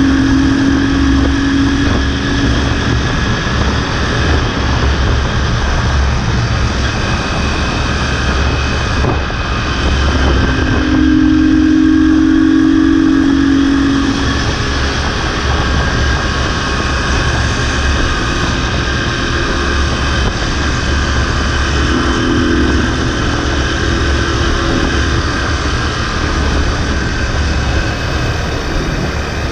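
Motorcycle engine running at a steady cruise, heard from the rider's seat, with a droning tone that swells and fades three times.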